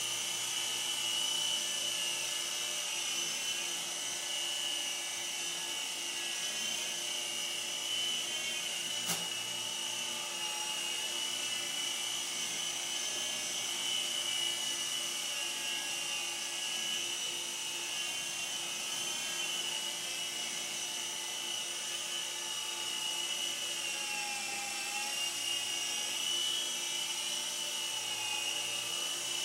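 Candide Lightning RC toy helicopter in flight: its small electric motor and rotor blades make a steady high-pitched whine that wavers slightly in pitch and dips briefly near the end as the throttle changes. There is a single click about nine seconds in.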